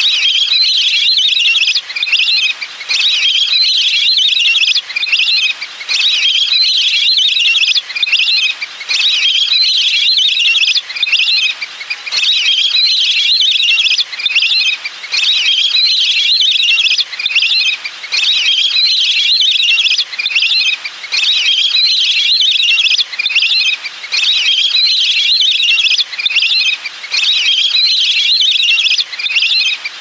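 Lesser whistling ducks calling: high, chattering whistles repeated in runs of about two seconds with brief breaks between them.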